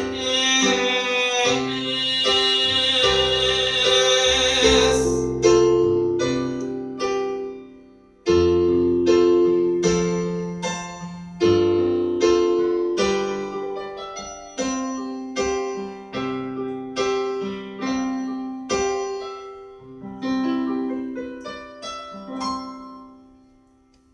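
Piano playing the slow closing chords of a ballad, each chord left to ring and die away, the last one fading out near the end. For the first five seconds a brighter, fuller wash rings along with the piano and then stops suddenly.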